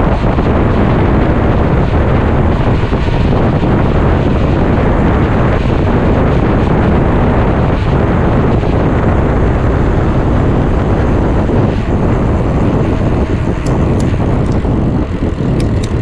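Steady, loud wind rush buffeting a GoPro action camera's microphone while a mountain bike is ridden along the road, with a few sharp ticks near the end.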